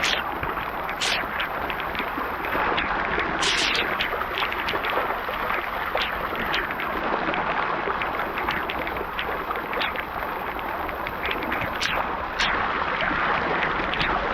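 Waterfall pouring: a steady rush of falling water, with occasional sharper splashes.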